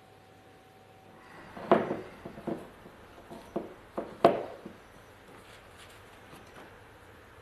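A small wooden pot knocking against a wooden tabletop as it is handled, about six sharp knocks over some three seconds starting about a second and a half in, the first and one near the end loudest.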